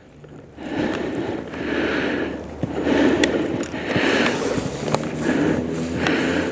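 A saw cutting a maple limb in rhythmic back-and-forth strokes, about one stroke a second.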